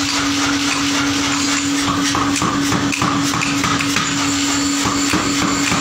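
A blacksmith's forge with its blower running: a steady motor hum and rush of air, with a few light metallic clinks and knocks from the tongs and iron, mostly around two to three seconds in and again about five seconds in.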